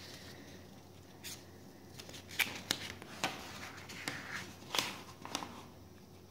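Paper of a workbook rustling and crackling as it is handled and moved, in a string of short crackles from about a second in until a little after five seconds.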